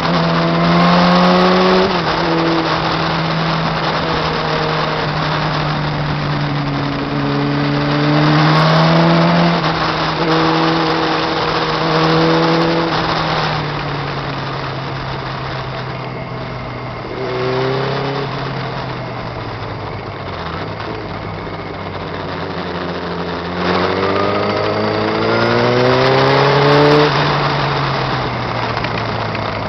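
Motorcycle engine accelerating hard again and again, its pitch climbing and then dropping back at each gear change, over a steady rush of wind.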